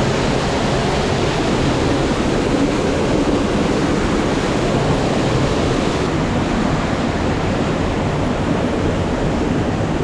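Steady rushing of a mountain stream's water running over rocks.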